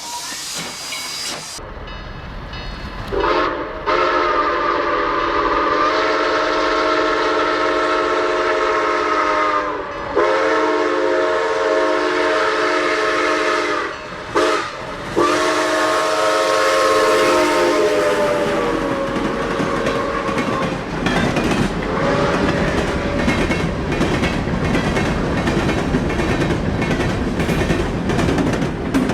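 Steam locomotive's chime whistle sounding four blasts, long, long, short, long: the grade-crossing signal. Then the train runs on with a rumble and wheels clacking over rail joints.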